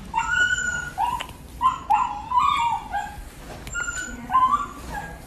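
Small puppy yipping: a string of short, high-pitched barks, some coming in quick runs.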